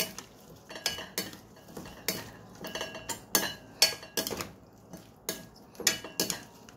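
A spoon tossing a fish-ball salad in a ceramic bowl, clinking and scraping against the bowl in irregular strokes, about two or three a second.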